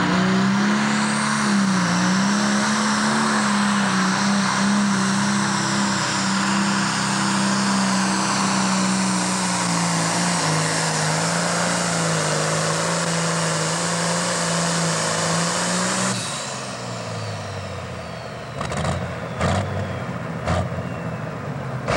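Pro Stock pulling tractor's turbocharged diesel engine at full power under load, dragging the weight sled for about sixteen seconds with a high whine riding above it. The engine then drops off suddenly as the pull ends, followed by three sharp knocks.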